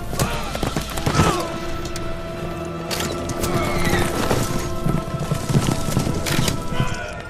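Film battle soundtrack: music with held notes over galloping horse hooves, broken by several sharp impacts.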